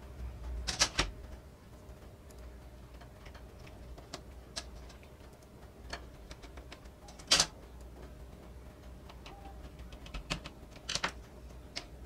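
Scattered light clicks and knocks of a plastic remote-control case and its circuit board being handled and worked with a small screwdriver, the loudest a single sharp click about seven seconds in.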